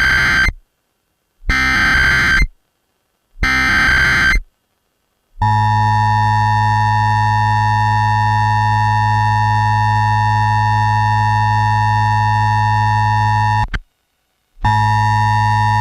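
Emergency Alert System test broadcast: three short bursts of warbling SAME digital header data, then a steady EAS attention-signal tone for about eight seconds. The tone cuts off, and after a short gap it sounds again for about two seconds near the end.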